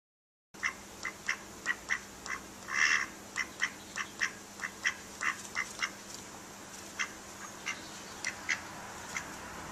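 Duck quacking in a quick series of short calls, about three a second, starting about half a second in. One longer call comes about three seconds in, and the calls grow sparser and fainter after about six seconds.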